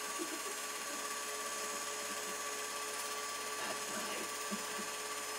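Home-movie film projector running: a steady mechanical whirr with a constant whine.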